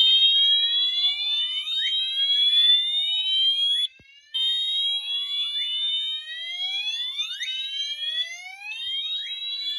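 Fire alarm horn strobes sounding whoop tones together, set off by keying an agent release station. A slow rising whoop restarts about every four seconds, with a brief break near four seconds. Under it run shorter, faster rising sweeps from the second horn's quicker whoop.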